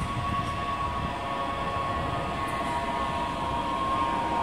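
Bombardier Talent 2 electric multiple unit (DB class 442) passing close by, a steady rumble of its wheels on the track with a steady high whine over it.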